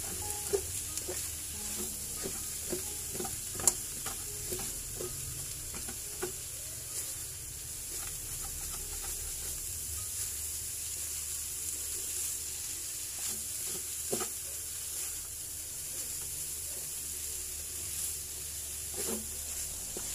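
Flaked milkfish with onions and green chili sizzling steadily in a nonstick wok while a spatula stirs it, scraping and tapping irregularly against the pan, with sharper knocks about 4 s and 14 s in.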